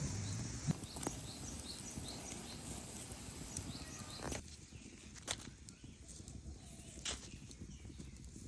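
Quiet outdoor background with a faint high chirp repeating about twice a second for the first few seconds, then a few sharp clicks or taps.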